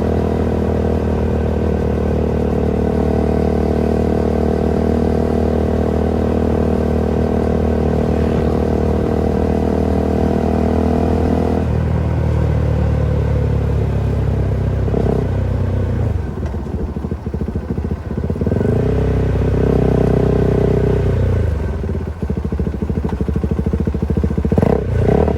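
Husqvarna Svartpilen 401's single-cylinder engine through an aftermarket Coffman's exhaust, running at a steady pitch, then from about halfway revving up and dropping back several times.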